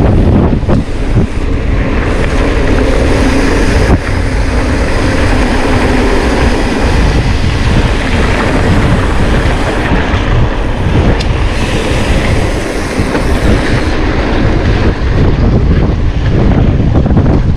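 Mountain bike being ridden over rough trail: loud wind noise on the microphone over a steady rattle from the bike, with a few sharp knocks from bumps.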